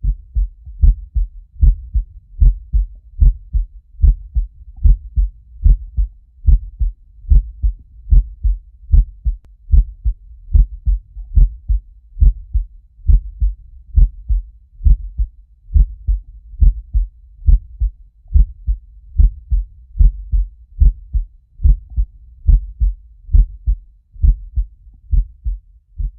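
Heartbeat sound effect: steady lub-dub double thumps, low and loud, about 75 beats a minute.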